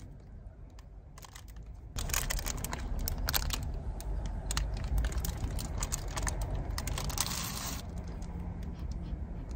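Crinkling and rustling of a plastic food wrapper: a dense run of rapid crackles and clicks that starts about two seconds in, lasts about six seconds and stops abruptly.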